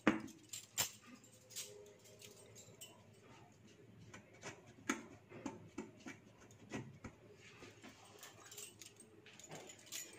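Scattered faint clicks and taps: bangles clinking as hands press a potato-stuffed dough ball into dry flour and work it on the rolling board, with the rolling pin coming into use near the end.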